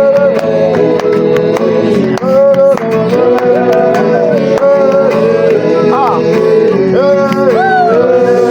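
Worship music: voices singing long, sliding notes over instrumental accompaniment, with a steady percussion beat.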